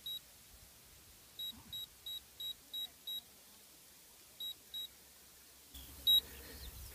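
PerfectFlite StratoLogger altimeter beeping out the flight's peak altitude digit by digit in short high beeps: one beep, then a run of six, then two, then a single louder beep near the end.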